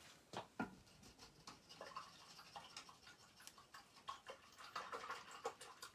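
Faint, irregular scratching and small taps of a paintbrush's bristles scrubbing paint.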